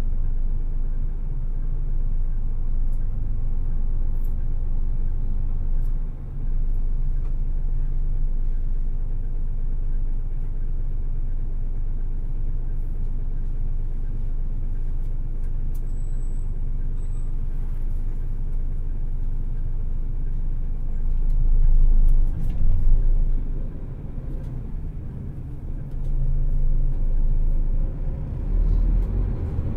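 Hino Selega coach running on the road, heard from inside the cabin: the diesel engine's steady low drone with road rumble. The engine grows louder a little past two-thirds of the way in, drops away briefly, then picks up again near the end.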